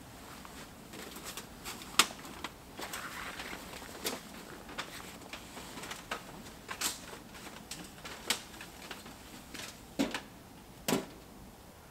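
Titanium tent-stove chimney pipe being handled and fitted, giving off irregular light clicks and knocks, with a sharper knock about two seconds in and two heavier knocks near the end.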